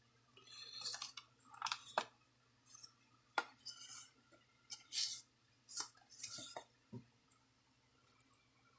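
An old cardboard game box being handled and opened: a string of short scuffs and rustles with a few light clicks and clinks.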